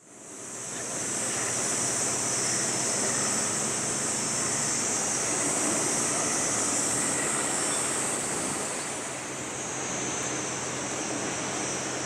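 Steady waterside ambience: an even, high-pitched hiss over a faint low hum, fading in over the first second and dipping slightly about nine seconds in.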